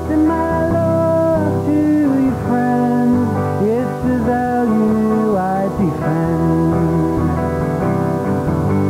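Instrumental break in a live acoustic song: guitar accompaniment under a held melody line that bends and slides between notes.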